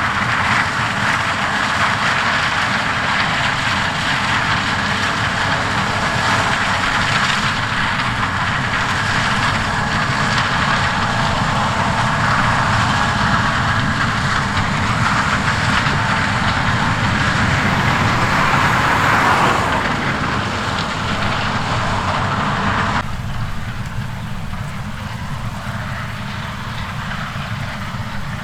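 Heavy farm machinery running steadily, a dense mechanical noise that changes abruptly to a duller sound about 23 seconds in.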